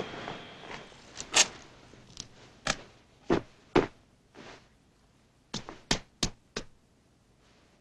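Scattered sharp knocks and clunks of debris and props on a foley stage: about ten separate hits spread over several seconds, the last four in quick succession.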